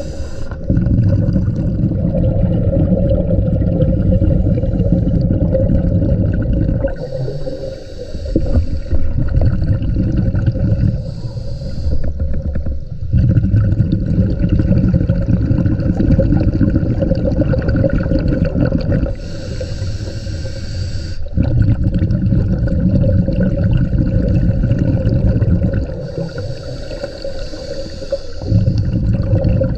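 Scuba diver breathing through a regulator, heard underwater. Each breath is a short hiss on the inhale, then several seconds of low bubbling as the exhaled air leaves the regulator; four breaths in all, evenly paced.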